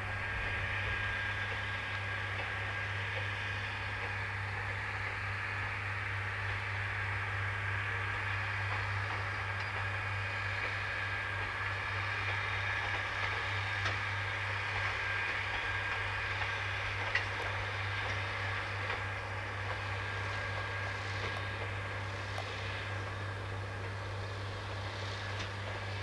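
Minami-Aso Railway trolley train Yusuge running steadily along the line behind its small diesel locomotive: a steady low drone with a hiss above it, and a couple of faint clicks past the middle.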